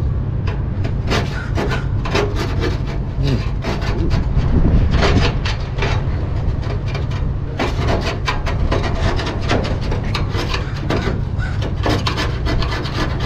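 Metal scraper blade scraping old foil tape and soot off a metal stove chimney pipe in short, repeated strokes, over a steady low rumble.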